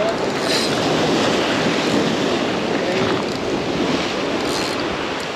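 Waves washing steadily against a jetty, with wind buffeting the microphone.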